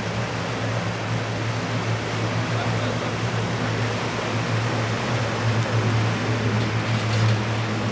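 Paddle steamer Rhône passing close alongside: a steady low hum with an even rush of churning water from its paddle wheels.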